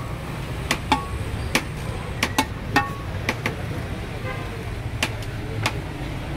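Sharp clinks of serving utensils and plates against a large steel cooking pot as pulao is served, about ten at uneven intervals, some ringing briefly, over a steady low street rumble.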